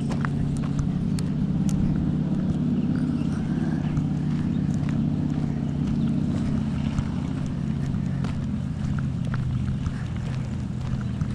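A steady, low engine hum holding an even pitch throughout, with scattered crunching footsteps on a gravel path.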